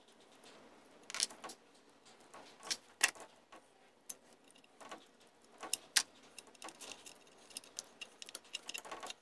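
Irregular light metallic clicks and clinks from hands working the choke solenoid and its linkage loose on a Johnson 15 HP outboard. The sharpest clicks come about a second in, around three seconds in and at six seconds.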